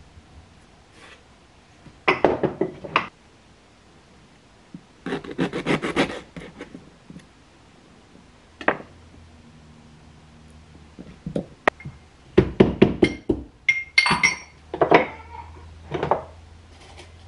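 Kitchen prep sounds: a knife chopping on a wooden cutting board in several quick runs of strokes. Near the end come a few ringing clinks and knocks of pots or utensils.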